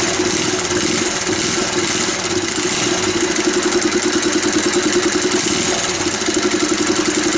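Yamaha SR400's air-cooled single-cylinder four-stroke engine, fitted with a prototype turbo kit, idling steadily with an even pulsing beat. It has just started, and it exhausts through the turbine into the stock muffler.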